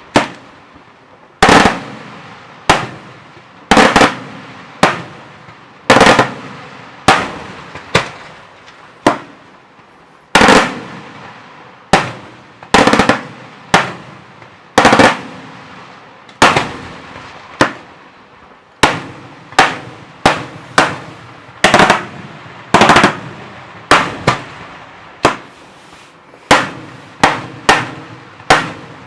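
Daytime fireworks display: a steady series of loud bangs, about one a second, each followed by a short echo, with the bangs coming quicker near the end.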